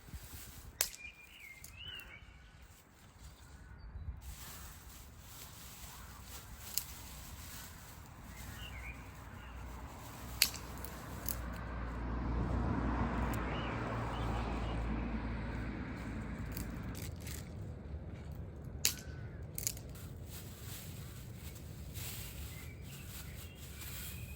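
Outdoor ambience with a few short bird chirps and several sharp clicks; a broad rushing noise swells up past the middle and fades away again.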